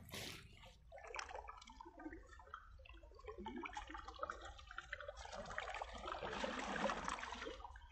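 Faint dripping and light splashing of water as a fishing net is hauled in by hand through shallow river water, with many small scattered drips that grow a little busier in the second half.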